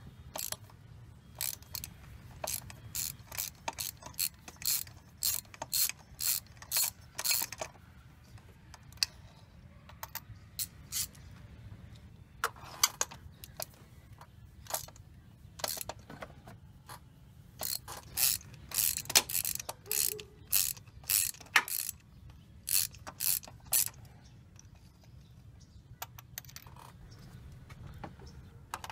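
Socket ratchet on an extension clicking in several runs of quick strokes, with short pauses between, as loosened spark plugs are spun out of the cylinder head. The clicking dies away near the end.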